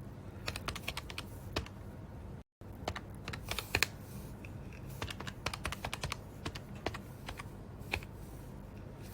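Small keys being pressed in quick, irregular clicks, as on a calculator working out a price. The sound drops out completely for a moment about two and a half seconds in.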